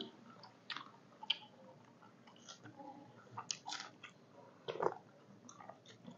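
Close eating sounds of people chewing chicken soup: wet chewing and lip smacks with scattered short clicks, one louder smack about five seconds in.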